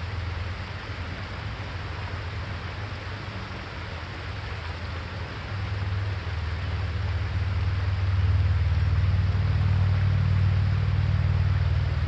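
Outdoor creek ambience: a steady hiss of running creek water over a low rumble of wind on the microphone, the rumble growing louder about halfway through.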